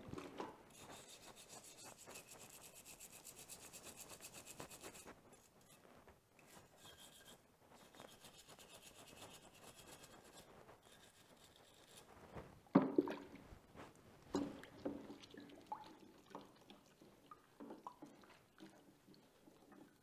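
Small stiff-bristled brush scrubbing caked dirt off an aluminium dirt-bike brake pedal: fast, even back-and-forth strokes for about four seconds, then shorter spells of scrubbing. A sharper knock about 13 seconds in, then a few small clatters.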